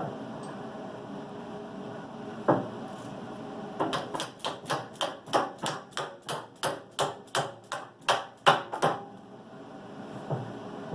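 A hammer striking steel: one blow, then a quick run of about eighteen sharp metallic strikes at three to four a second that stops about two seconds before the end.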